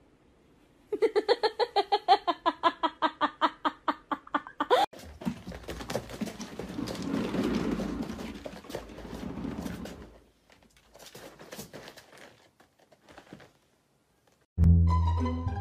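A quick run of about twenty short, pitched, repeated sounds lasting about four seconds. Then a cat exercise wheel rumbles with the patter of a cat running in it for about five seconds, followed by a few faint clicks. Music with plucked strings starts near the end.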